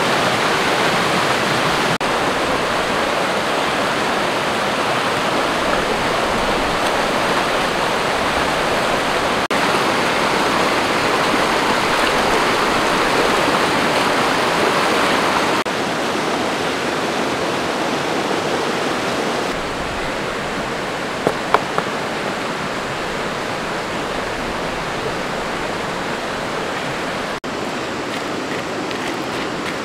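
Fast river water rushing over rocks in rapids: a steady wash that drops a little in level in two steps past the middle, with a couple of short sharp clicks soon after.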